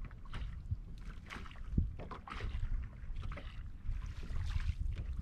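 Wind rumbling on the microphone, with small waves lapping and slapping irregularly against a boat's hull.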